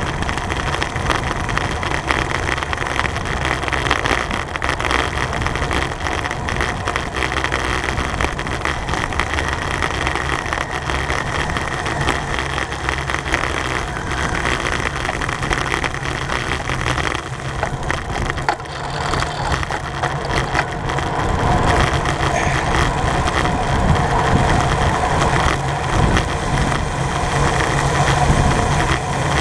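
Steady wind and road noise from a racing bicycle at speed: wind on the microphone over tyre hum and drivetrain whirr. It grows somewhat louder about two-thirds of the way through.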